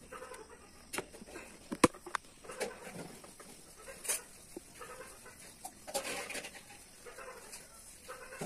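A chicken clucking in short repeated calls, over small handling clicks and taps as coriander seeds are shaken out of a plastic tub into a hand. One sharp click a little under two seconds in is the loudest sound.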